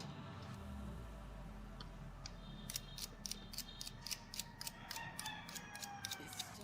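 Light, irregular clicking and ticking of small parts being handled during a smartphone repair. It starts about three seconds in and comes faster and denser toward the end.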